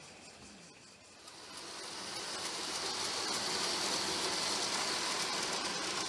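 G-scale model steam locomotive passing close by with its freight train: a steady hissing rush that swells about a second in and stays loud, with faint regular ticking.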